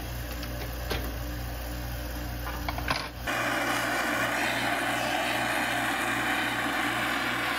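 A vacuum casting table's pump runs with a steady low hum and a few light clicks. About three seconds in, it cuts to a torch flame hissing steadily and somewhat louder as it melts sterling silver in a melting dish.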